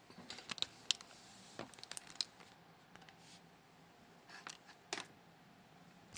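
Faint, scattered clicks and light taps of small metal lock parts being handled, in a few short clusters.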